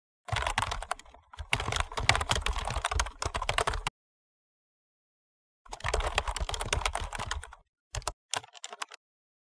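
Computer keyboard typing, rapid key clicks in runs: a long run, a pause of nearly two seconds, a second run, then two short spurts near the end.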